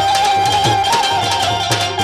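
Instrumental passage of Gujarati kangopi folk music. A held melody line steps between notes, with a quick trill after about a second and a half. Under it, tabla strokes have a bass drum that bends in pitch.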